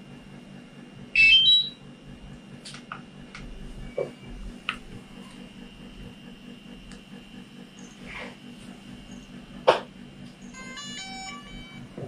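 DJI Mavic Pro drone and its remote controller powering up: a loud electronic beep about a second in, and a quick run of short stepped startup tones near the end. Between them come several sharp clicks of handling, over a steady low hum.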